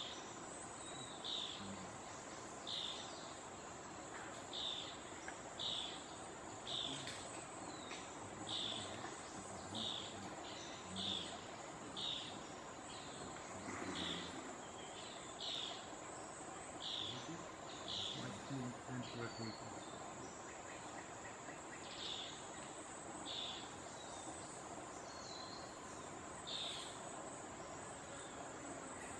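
A bird gives short, high call notes again and again, roughly one every second or so, with irregular gaps. Behind them runs a steady, high-pitched insect drone.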